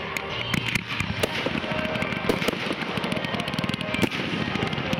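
Display fireworks firing in a quick, irregular string of sharp bangs and crackles, with music playing underneath.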